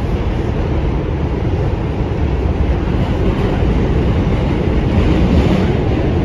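New York City subway train in motion, heard from inside the car: a loud, steady rumble of wheels on the rails, growing slightly louder toward the end.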